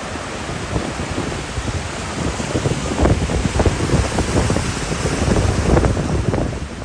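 Wind buffeting the microphone over the wash of ocean surf, in gusts that get stronger and more frequent from about halfway through.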